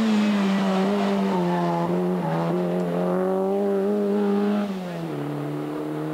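Rally car engine running hard at high revs, its pitch held nearly steady as the car drives through the stage. A little under five seconds in, the revs and the level drop.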